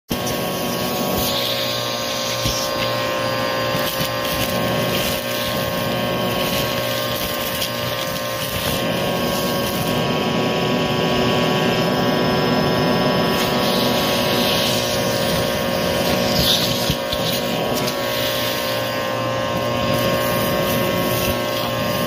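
Vacuum cleaner running steadily through an extra-long crevice tool, its motor whine constant, with grit, lint and small plastic beads crunching and rattling as they are sucked up.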